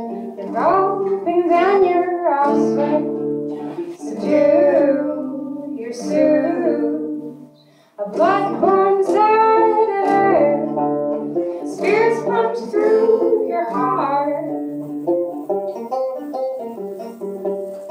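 Live banjo and acoustic guitar with singing. The music drops away for a moment just before eight seconds in, then comes back in full.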